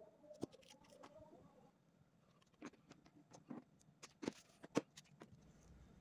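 Soft handling clicks and taps of small tools and wire on a workbench, with a handful of sharper clicks in the second half, the loudest about five seconds in.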